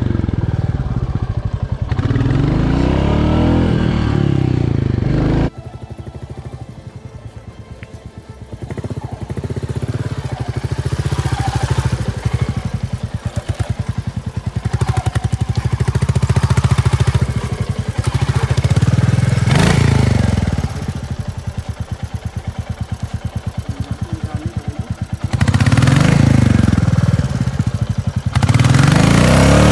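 Royal Enfield Classic 350's single-cylinder engine running and revved up and down several times in bursts while the bike is stuck in soft ground and being worked free. There is a single sharp knock about two-thirds of the way through.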